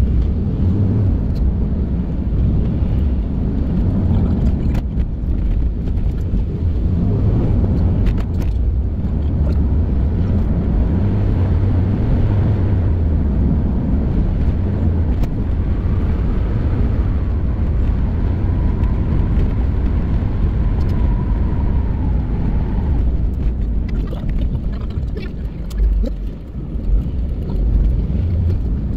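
Road and engine noise of a moving vehicle heard from inside the cabin: a steady low rumble. A faint whine rises and falls around the middle, and there is a short dip in the noise near the end.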